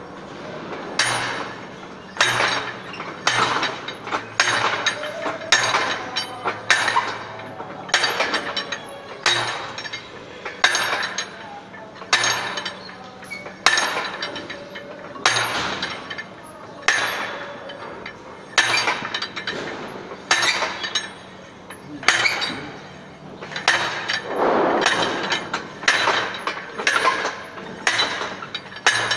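Standard Penetration Test drive hammer, a heavy steel weight hauled up by rope and dropped onto the anvil of the drive rods, striking about once a second with a sharp metallic clank as it drives the sampler into the soil.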